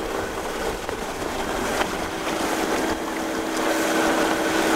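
Wind buffeting the microphone and choppy water splashing along a sailing yacht's hull, over the steady drone of the yacht's inboard engine.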